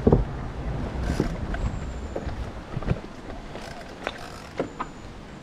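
Wind rushing over the microphone of a moving electric mountain bike, loud at first and dying away over the first few seconds as the bike slows. A few sharp clicks and knocks from the bike come through, the loudest about three, four and four and a half seconds in.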